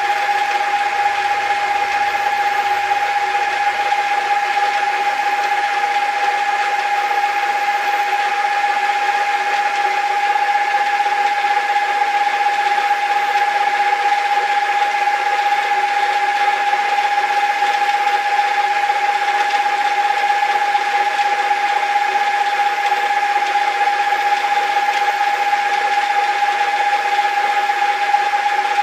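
A 40-year-old metal lathe running at steady speed, its drive giving a constant mechanical whine on one steady pitch, while a 0.5 mm drill is fed by hand into the spinning brass.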